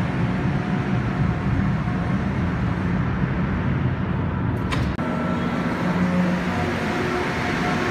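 Rubber-tyred Montreal Metro train rolling along the platform as it pulls into an underground station, a steady rumble of tyres and motors. A brief break about five seconds in, then another metro train running along a platform, with a few steady whining tones over the rumble.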